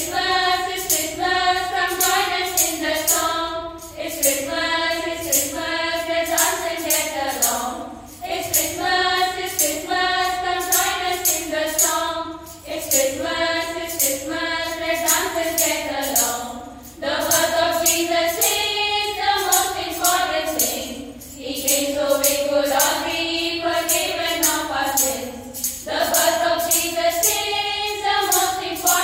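Group of girls and women singing a Christmas carol together through microphones, one melody line in phrases with short breaks between them, over a steady jingling beat.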